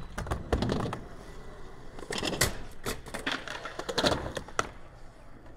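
Skateboards rolling and riding ramp edges, with a string of sharp clacks and knocks from wheels, trucks and boards striking the ramps. The loudest knocks come near the start and about two and a half and four seconds in.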